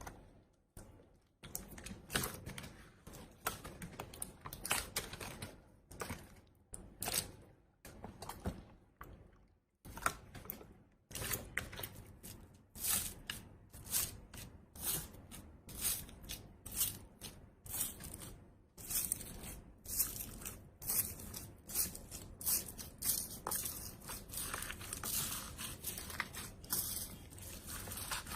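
Slime being squeezed and worked by hand, giving a run of sharp clicking and crackling pops, with a louder pop about once a second in the second half.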